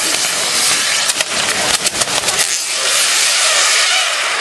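Fireworks on a burning papier-mâché Judas effigy hissing steadily, with scattered sharp crackles.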